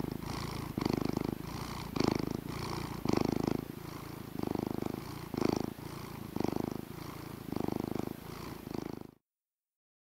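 Domestic cat purring, a rough, rapidly pulsing rumble that swells and eases about once a second, then cuts off abruptly near the end.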